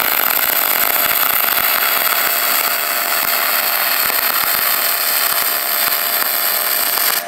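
MIG welding arc on aluminum plate, fed with 4043 wire under pure argon from an HTP MIG 2000i inverter welder, running as a steady crackling hiss that cuts off at the very end as the trigger is released.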